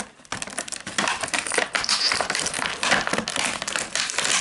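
Figure packaging being handled and pulled open by hand: a dense, irregular run of crinkling and crackling.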